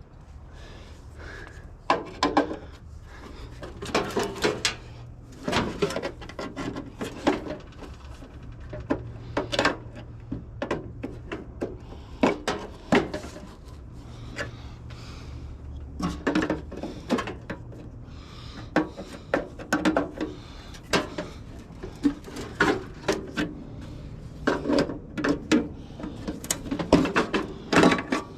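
Irregular knocks, clicks and scraping as water-heater parts are pried and peeled apart by hand for scrap copper, over a steady low hum.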